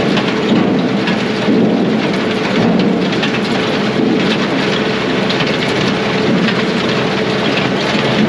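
Brute Force USA 18-24HD diesel firewood processor running steadily under load, a constant loud machine rumble and hum with frequent knocks and clatter of wood being processed.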